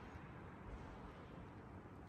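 Near silence: a faint, steady background hiss with no distinct event.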